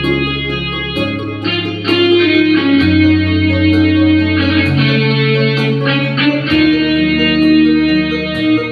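Instrumental song intro played on electronic keyboards through an amplifier: a guitar-like lead melody over a bass line that changes every second or two, with a steady drum beat.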